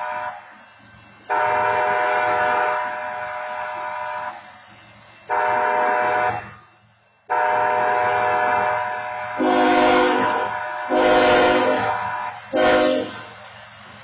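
Railroad crossing horn sounding a long, long, short, long pattern in a steady multi-note chord. About nine seconds in, a louder, deeper-chorded horn gives three blasts, the last one short.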